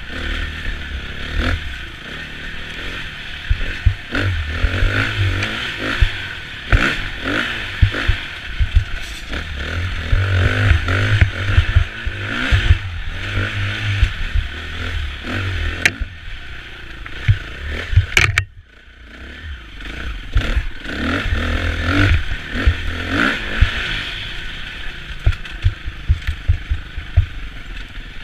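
KTM 350 EXC-F enduro motorcycle's single-cylinder four-stroke engine being ridden hard on a rough forest trail, revving up and down with the throttle. Knocks and rattles come from the bike over roots and bumps. The sound briefly drops away about eighteen seconds in.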